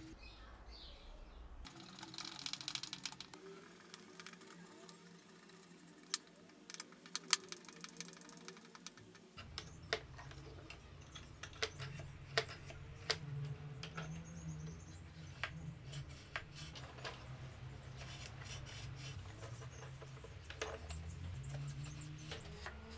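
Irregular small clicks and taps of metal levers and wooden parts being handled and fitted on a reed organ's keyboard-end linkage, over a low steady hum.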